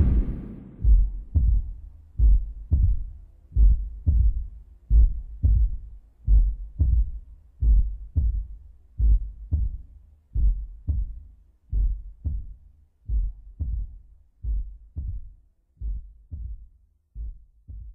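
Heartbeat sound effect: a steady run of low, dull thumps in lub-dub pairs that grows fainter toward the end. Loud music fades out just as it begins.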